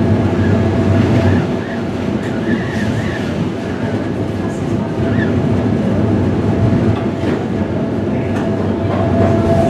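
Inside a PCC streetcar under way: steady running noise of the motors and wheels on the rails, with a held whine and a few light clicks.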